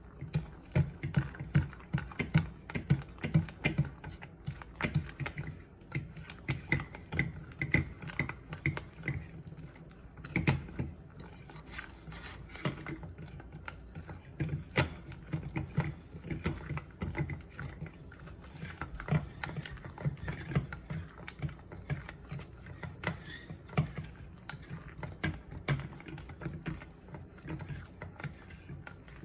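Irregular light taps, clicks and clatter of kitchen utensils handling food, going on without a steady rhythm.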